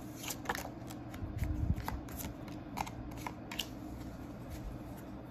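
A deck of oracle cards being shuffled by hand: irregular crisp clicks and flicks of card edges, with a low knock about one and a half seconds in.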